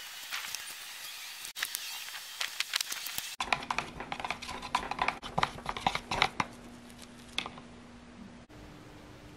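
A stir stick clicking and scraping against the sides of a plastic mixing cup as tinted resin is stirred: many quick irregular taps over a steady low hum. It starts about a third of the way in and stops shortly before the end.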